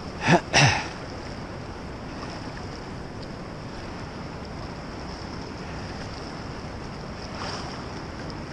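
Steady wind noise on the microphone mixed with the rush of a fast, flooded river. Two brief loud noises come in quick succession just after the start.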